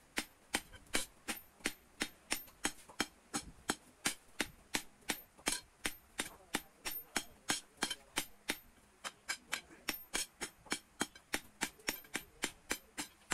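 Hand hammer beating the red-hot end of a ribbed steel rod on a steel anvil block, steady ringing blows about three to four a second.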